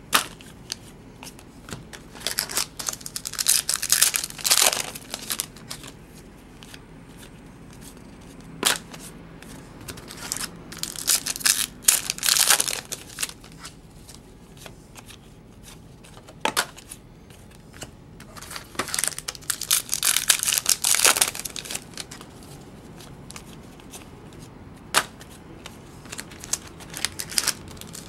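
Trading cards being handled by hand: foil pack wrappers crinkling and tearing open and cards rustling as they are flipped through. It comes in three spells of a few seconds each, with a few sharp clicks between and more tearing starting near the end.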